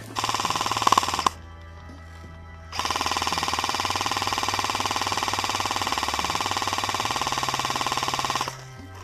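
Electric airsoft rifle firing on full auto: a burst of about a second, then after a short pause a long unbroken burst of nearly six seconds.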